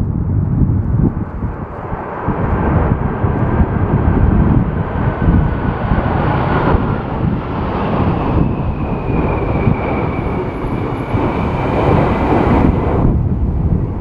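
Airbus A330 airliner's jet engines whining, their pitch falling slowly as it passes low, under loud gusting wind rumble on the microphone.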